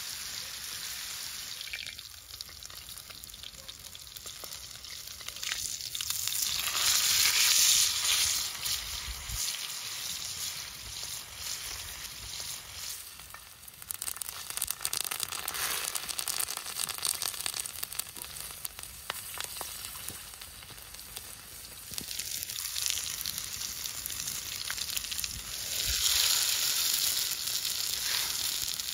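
A large chunk of meat searing in hot oil on a big black steel disc pan over a campfire: a continuous sizzle with fine crackling. It swells louder about seven seconds in and again near the end.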